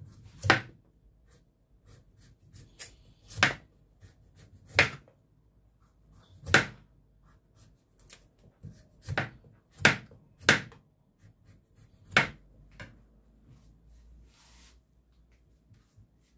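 Kitchen knife cutting the tough skin off a butternut squash on a plastic cutting board: about nine sharp cuts and knocks at uneven intervals, with quiet between.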